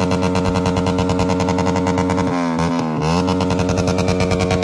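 Yamaha MT-15 V2's 155 cc single-cylinder engine revved through an aftermarket SC Project exhaust, held steady at high revs. Revs drop about halfway through, with a quick blip, then climb back and hold.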